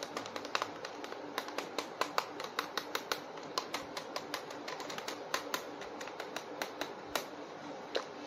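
Sharp, irregular plastic clicks and taps, about four or five a second, as hands handle a hollow plastic army-man toy and move its limbs.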